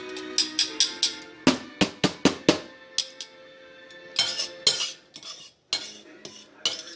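Kitchen utensils clinking and tapping against dishes: a quick run of sharp knocks in the first few seconds, then scattered taps.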